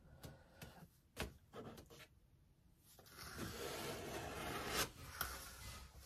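Knife blade scraping and smoothing wet joint compound, a few light clicks and then a longer stretch of steady scraping from about three seconds in.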